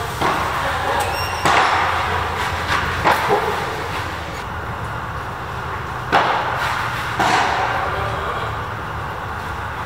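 Padel rally: the ball struck by rackets and bouncing off the court and walls, a string of sharp, irregularly spaced knocks with a short echo after each, stopping when the point ends about seven seconds in.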